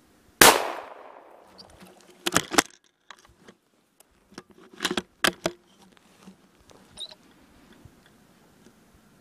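A single rifle shot from a .223 Remington Bars 4-1 about half a second in, its report echoing away over about a second. It is followed by two clusters of sharp clicks and knocks from the rifle being handled, at about two and a half and five seconds.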